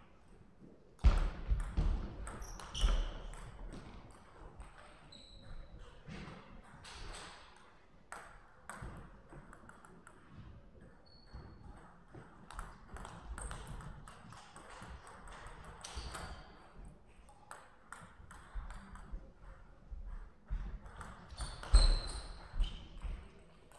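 Table tennis rallies: the plastic ball clicks sharply off rackets and the table in quick runs of hits, with quieter gaps between points.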